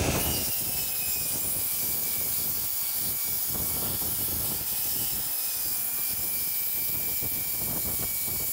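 Metabo sliding mitre saw running and cutting through a thick wooden beam: a steady high-pitched motor whine with the hiss of the blade, starting abruptly.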